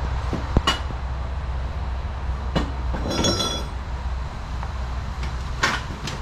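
Tools and objects being shifted by hand under a workbench: a few scattered knocks and clicks, and a brief ringing clink about three seconds in. Underneath is a steady low hum.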